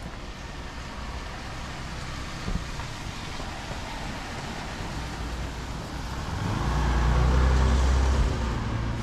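A motor vehicle passes close by on a wet street, its engine and tyre noise swelling about six seconds in and falling away near the end, over a steady hiss of rain.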